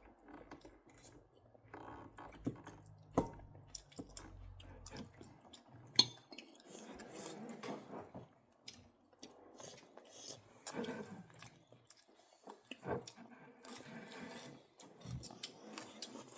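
Cutlery and plates clinking in scattered light knocks during a meal, with a couple of sharper clinks about three and six seconds in, and some chewing.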